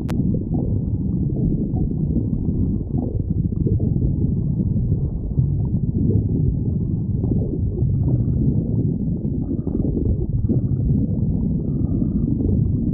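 Human stomach growling: a continuous low rumble, with a few faint higher gurgles in the second half.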